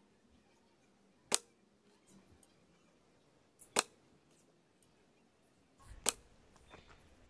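Carbon arrows from a recurve bow striking a foam target boss: three sharp smacks about two and a half seconds apart, with quiet between them.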